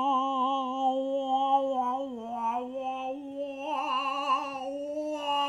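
A man singing long, held notes, the pitch dipping briefly about two seconds in, with a wavering vibrato later on.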